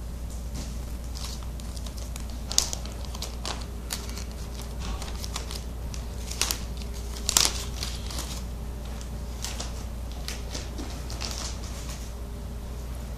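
Scattered light clicks, taps and rustles of laptop LCD screen panels being handled and moved, with two sharper clicks about 2.5 and 7.5 seconds in, over a steady low hum.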